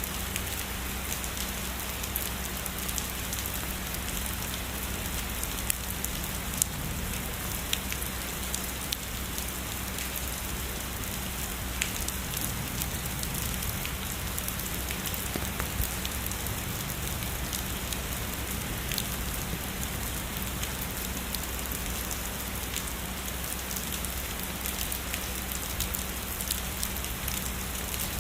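Steady heavy rainfall, with a dense patter of drops and now and then a sharper single drop hitting close by.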